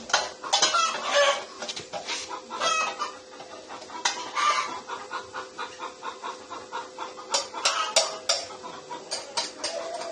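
Light clinks and taps of square steel tube pieces being handled and set down on a concrete floor, with chickens clucking in short pitched calls and a faint steady hum underneath.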